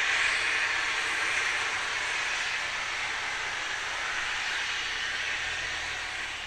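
Steam hissing loudly and steadily from a BR Standard Class 4MT tank locomotive, easing off a little near the end.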